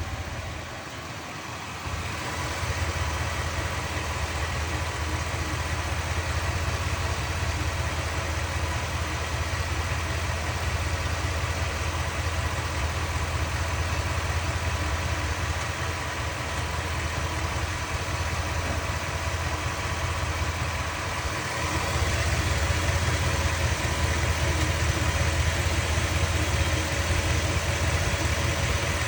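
Ford F-250 Super Duty engine idling steadily, with a tick that the owner wonders may be lifter tick. The sound gets louder about two seconds in, and again with more treble about three quarters of the way through.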